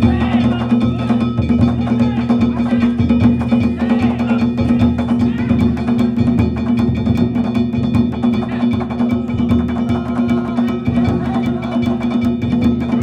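Danjiri festival cart's narimono: taiko drums and kane gongs struck in a fast, continuous rhythm, the gongs ringing on throughout.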